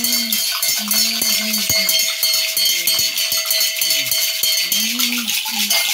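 Two gourd rattles hung with bunches of metal cowbells and brass bells, shaken continuously in a dense jangling rattle, with a steady bell tone ringing through. Under it a low voice chants in short, repeated phrases.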